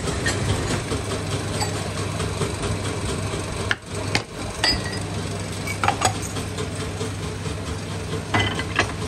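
Workshop machinery running with a steady hum, with scattered metallic clanks and knocks as wooden brush blocks are handled in a metal jig.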